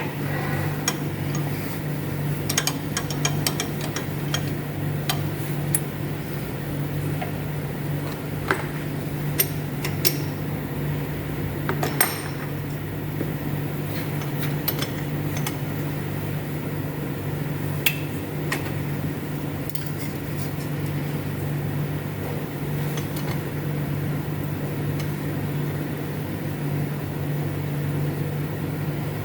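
Lathe running steadily while a parting tool cuts through a cylinder repair sleeve, a constant hum with scattered sharp metallic clicks and ticks from the cut.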